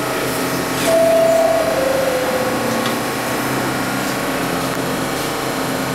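R46 subway car standing at the platform, its onboard equipment humming steadily; about a second in, a two-note falling chime sounds, the signal that the doors are about to close.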